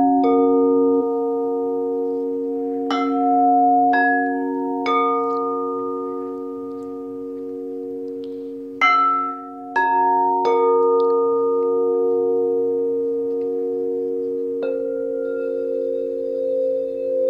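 Quartz crystal singing bowls struck one after another in three small groups, sounding the mantra notes C, F, A and C. Each pure tone rings on long after the strike, and the tones overlap with a slow wavering beat.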